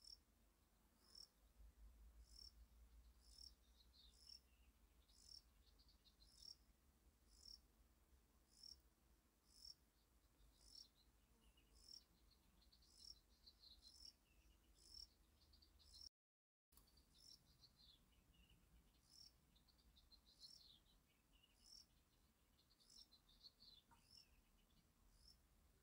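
Very faint outdoor chirping: short, high chirps repeating irregularly about once or twice a second, with a few softer twittering runs between them. The sound drops out completely for half a second about two-thirds of the way through.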